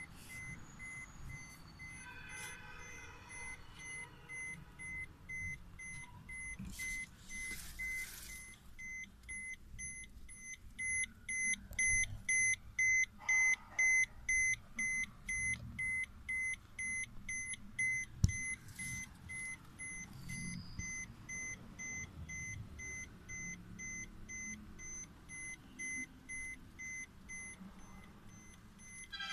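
Suzuki Vitara's in-cabin warning chime beeping in a steady repeating rhythm, a little more than once a second, louder around the middle. There is one sharp click a little past halfway.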